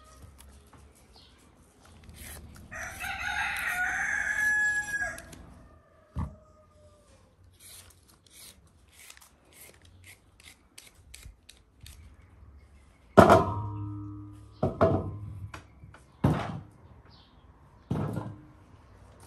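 A rooster crows once, a long call of about two and a half seconds near the start. Then come light, regular scraping clicks of a carrot being peeled. Later there are several loud knocks, the first ringing briefly.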